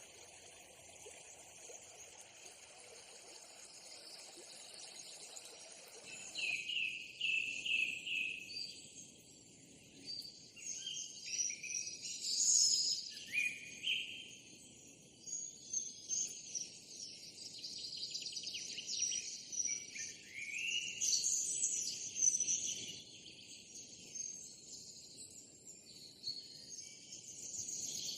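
Outdoor nature ambience: a steady high drone of insects, with birds chirping in quick repeated notes from about six seconds in.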